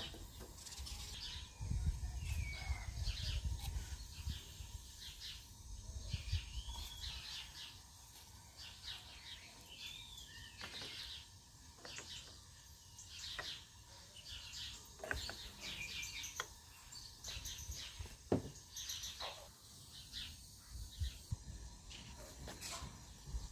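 Small songbirds chirping and singing on and off, with short whistled notes. A few light knocks of clay lids being set onto clay pots come between the calls, and a low rumble runs through the first few seconds.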